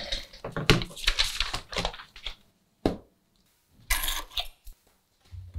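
Rustling handling noises as a smartphone is moved about in the hands, with a couple of sharp clicks, the first about a second in and another near the middle.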